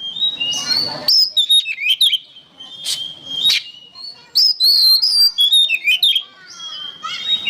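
Oriental magpie-robin singing in full song: a fast, varied run of loud whistled notes, sharp chips and trills, in phrases with short pauses between them.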